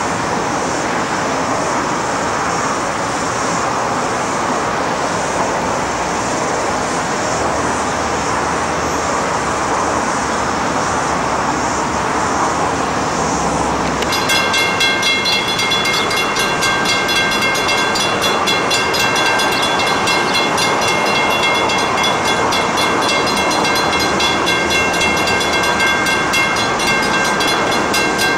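Four diesel locomotives heading a freight train, their engines working as they approach. About halfway through, a level crossing bell starts ringing rapidly and keeps on over the engine noise.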